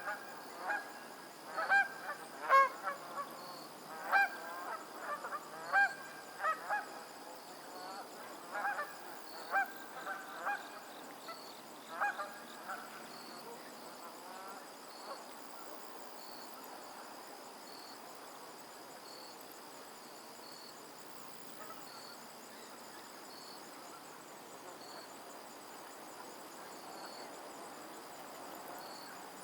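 A flock of geese honking: a quick run of short, sharp honks from several birds that thins out and stops about halfway through, leaving only a faint steady hiss.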